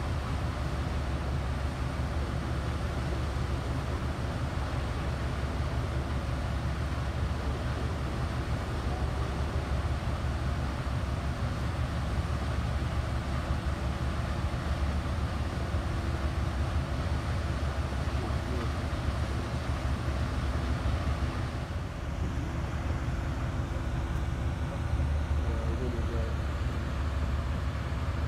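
Steady low engine-like rumble under a constant outdoor hiss.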